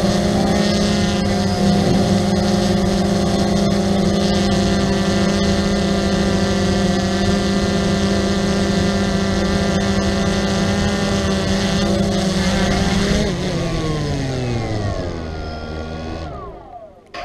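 XK Detect X380 quadcopter's brushless motors and propellers running at a steady pitch, heard close up from the camera mounted on the drone. About thirteen seconds in, the pitch falls as the motors spin down after the drone lands on the grass, and the sound cuts off near the end.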